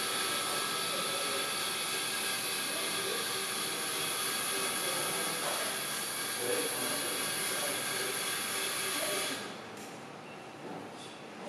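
RainbowAstro RST-135 harmonic-drive telescope mount slewing, carrying a Takahashi Mewlon-210: a steady high-pitched motor whine with a hiss. The motors stop about nine seconds in.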